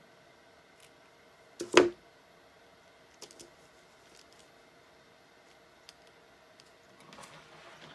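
Craft handling on a work table: one loud, sharp knock about two seconds in, like a tool being put down, then a couple of faint clicks and light rustling of paper and fabric near the end, over a faint steady hum.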